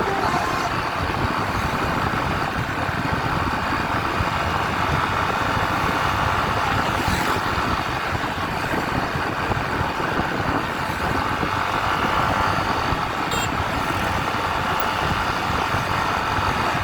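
Steady road noise of vehicles under way: engines and tyres running at an even level, with no horn tones.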